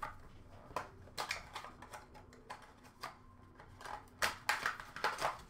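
Faint, scattered light clicks and taps of trading cards and packaging being handled, with a quicker run of them near the end.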